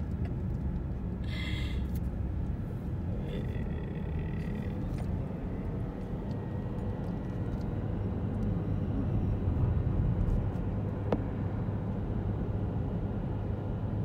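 Steady low rumble of a car's tyres and engine heard from inside the cabin as it drives down a winding road, with a short hiss about a second and a half in and a single sharp click near the end.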